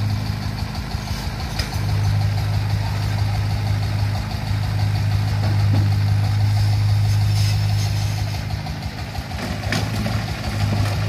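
Mini excavator's diesel engine running steadily as it digs soil and brick rubble and loads a three-wheeled truck, the hum easing briefly twice. A few sharp clanks sound over it.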